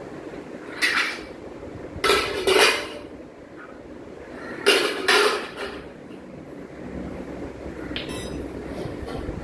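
Stainless steel plate and pots clanking as they are handled by a small child: one clatter about a second in, then two pairs of clatters around two and five seconds, each ringing briefly.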